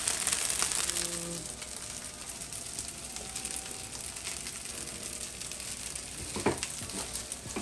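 Rice frying in oil in a skillet, a steady sizzle, with two light knocks near the end.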